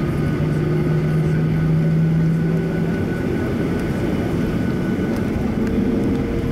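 Steady jet-engine rumble and air noise of a Boeing 737 airliner heard from inside the passenger cabin while it taxis, with a low hum that drops away about halfway through and a higher hum coming in near the end.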